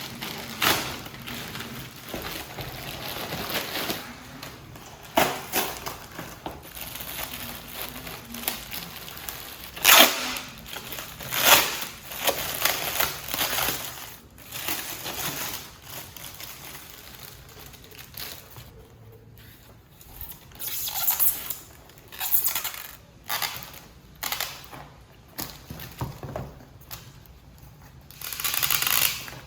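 Hands unboxing and fitting together a small toy glider: packaging rustling, with parts tapping and rubbing in irregular short bursts. There are two louder knocks about ten and eleven and a half seconds in.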